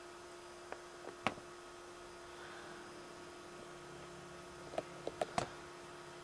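A steady low hum with a few short sharp clicks: three in the first second and a half, then a quick run of four near the end.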